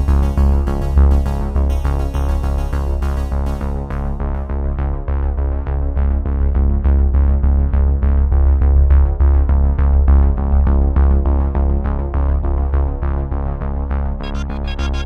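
Electronic background music, synthesizer over a heavy steady bass. The treble is filtered away for most of the stretch and comes back about a second before the end.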